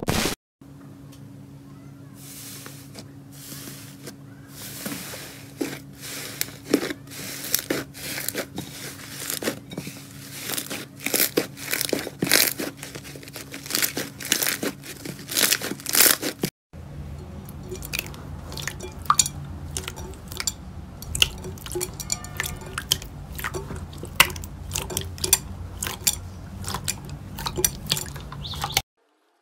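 Hands squeezing and kneading slime, giving a dense run of crackling, popping clicks as it is pressed and pulled. The sound cuts out briefly about halfway through and picks up again with another slime being squished.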